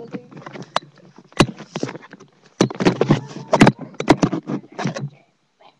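Handling noise on a webcam's microphone as it is carried: knocks, bumps and clothing rustling against it. A dense run of knocks comes from about two and a half to five seconds in, then it goes quiet.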